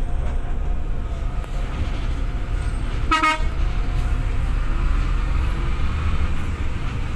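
Heavy bus engine rumbling steadily in the cabin on the road, with one short horn toot, a single note about half a second long, about three seconds in.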